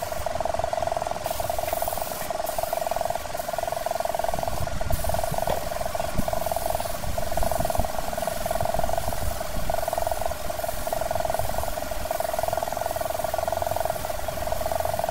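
Air-powered spray-painting rig spraying primer onto a steel truck body: a steady machine whine with a hiss.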